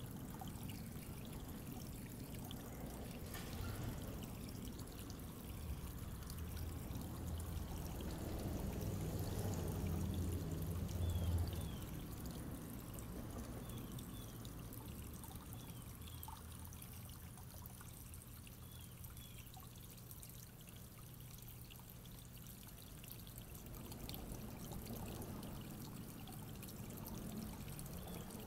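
Small rock waterfall trickling steadily into a backyard goldfish pond. A low rumble swells briefly and peaks about eleven seconds in.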